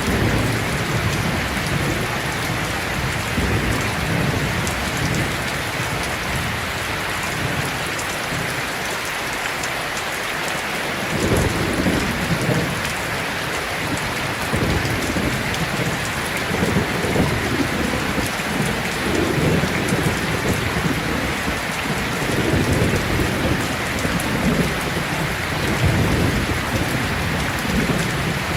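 Heavy rain falling steadily, with low rolling thunder rumbling underneath; the thunder dies down for a few seconds, then rolls back in about eleven seconds in and goes on rumbling.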